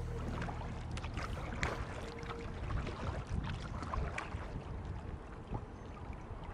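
Kayak paddling on calm water: small irregular splashes and drips from the paddle and water lapping against the hull, with a little wind on the microphone.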